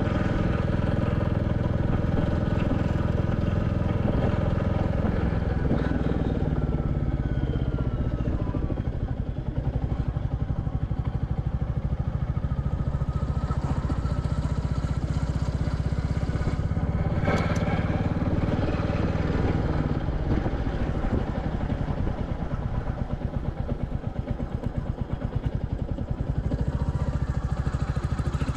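Royal Enfield Classic 350's single-cylinder engine running under way, its pitch sliding down a few seconds in and rising again as the revs change. The engine eases off twice, around ten seconds and again past twenty. There is one short sharp clack about seventeen seconds in.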